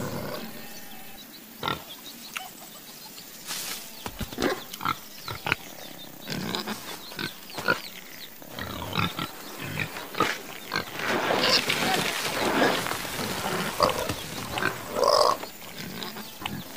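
Pigs grunting and oinking in short, repeated calls, with a few sharp knocks among them.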